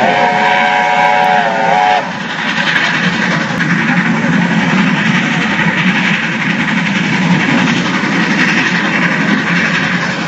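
Steam locomotive whistle sounding a chord of several notes for about two seconds, then cutting off sharply. After it comes the steady noise of the train running.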